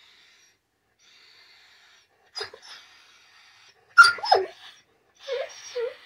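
Weimaraner vocalizing in a playful dog argument over a toy: a few short drawn-out calls, the loudest about four seconds in sliding down in pitch, then two shorter ones near the end.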